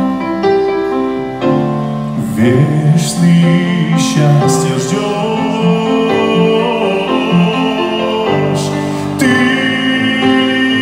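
A man singing a slow ballad into a microphone, accompanied on grand piano.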